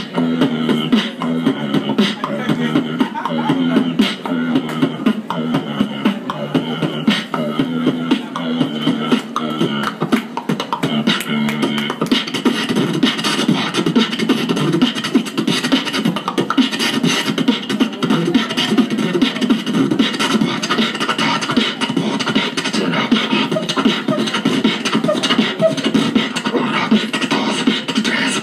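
Beatboxing into a handheld microphone played through a small amplifier and speaker: a fast, continuous stream of vocal drum beats and clicks over steadier vocal tones, getting busier about halfway through.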